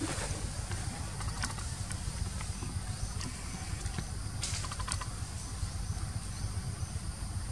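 Forest ambience: a steady high insect drone over a low rumble, with a short run of small clicks and crackles about four and a half seconds in and a lighter one earlier.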